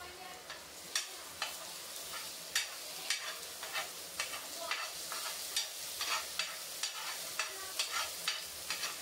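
Minced garlic sizzling in hot oil in a pan, fried until brown, while a metal spoon stirs it, tapping and scraping against the pan about twice a second.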